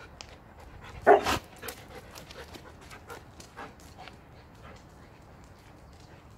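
Belgian Malinois giving a single loud bark about a second in, followed by faint panting that fades out.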